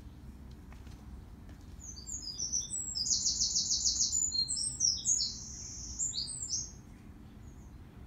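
A songbird singing one high-pitched phrase of quick, varied notes with a fast trill in the middle, starting about two seconds in and lasting about five seconds.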